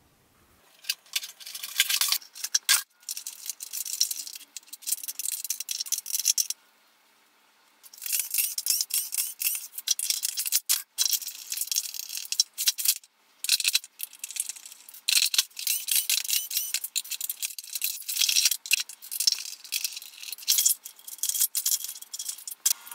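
Sped-up clattering, clicking and rattling of plastic parts and tools as an upright vacuum cleaner is taken apart, in fast irregular bursts that fall quiet briefly about six and a half seconds in.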